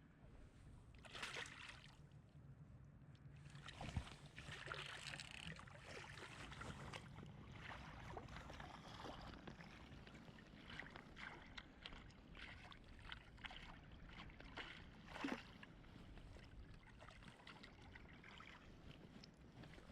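Faint water sloshing and splashing with irregular crackles and a couple of sharper knocks.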